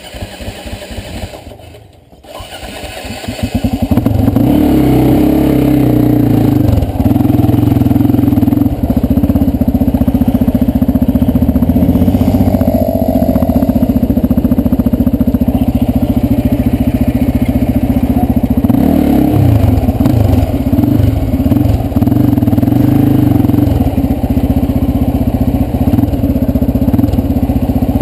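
Sport ATV engine running at low throttle with a pulsing beat, then opened up about three to four seconds in and running loud and hard, its pitch rising and falling with the throttle as the quad rides.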